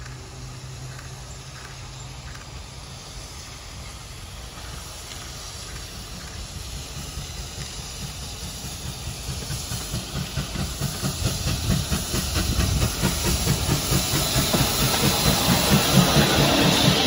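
Steam locomotive hauling a passenger train as it approaches and passes close by, its exhaust chuffing in a quick even rhythm that grows steadily louder, with hissing steam at its loudest near the end.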